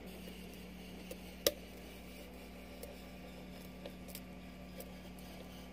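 Lock pick working the pins of a spool-pinned pin tumbler lock: a few faint, scattered metallic clicks, the sharpest about one and a half seconds in, as pins are lifted and set. A steady low hum runs underneath.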